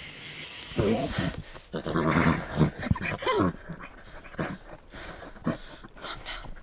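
An animal calling: a run of whining calls that slide up and down in pitch for about three seconds, then a few shorter ones.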